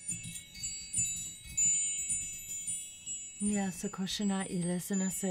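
Chimes tinkling, many high ringing tones struck at scattered moments. About three and a half seconds in, a voice begins over them.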